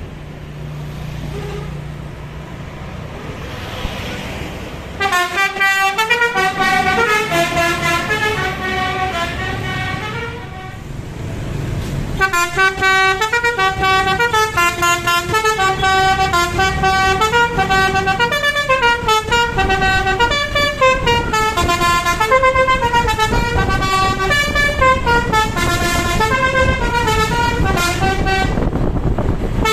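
A tour bus's telolet basuri musical air horn playing a melody of stepping notes. It starts about five seconds in over engine and traffic noise, breaks off briefly around ten seconds, then plays on without stopping.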